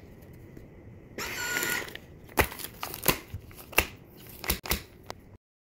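Plastic vacuum-seal bag holding fish fillets crinkling as it is handled, followed by a string of sharp clicks and taps.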